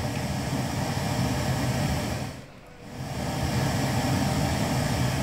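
Pink noise test signal from a Sonnect Sound Bullet audio tester, fed through an XLR input channel of an Allen & Heath SQ7 digital mixer to check that the channel passes signal. It is a steady hiss weighted toward the low end, drops out for about half a second a little over two seconds in, then resumes.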